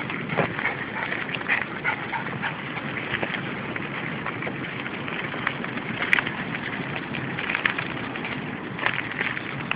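Footsteps on a grit path strewn with dry leaves and twigs, with rustling and many small scattered clicks, and one sharp click about six seconds in.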